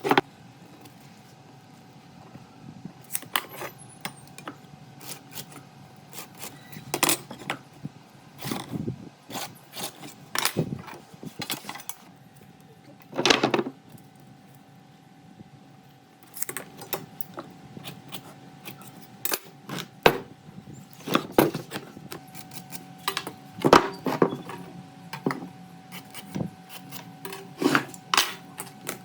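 Irregular knocks, taps and clatter of wood and hand tools being handled, with a few longer scraping rasps, over a faint steady hum.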